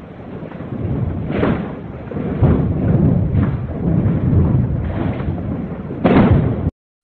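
Loud, low rumbling with irregular surges and thuds: a sharper thump about a second and a half in and a louder one near the end, after which it cuts off abruptly.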